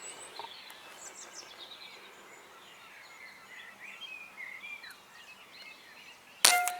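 Small birds chirping and singing, then a single air rifle shot near the end: one sharp report with a brief ring after it.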